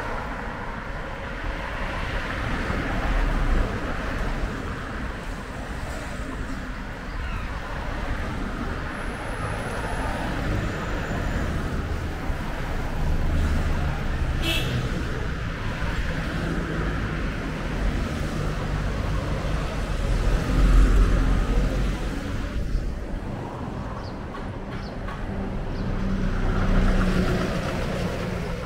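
Road traffic: a steady wash of vehicle engines and tyre noise that swells and fades as vehicles pass, loudest with a deep engine rumble about 21 seconds in.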